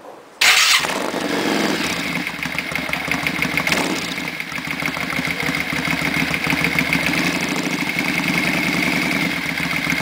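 Yamaha Virago 535's V-twin engine, breathing through Roncar sport exhaust pipes with the baffles out, starts about half a second in with a loud first burst. It then settles into a steady idle with an even pulsing beat.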